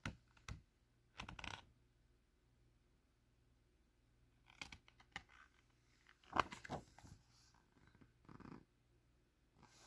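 Paper pages of a picture book being handled and turned: a few short, soft rustles spread through otherwise near silence, the loudest about six seconds in.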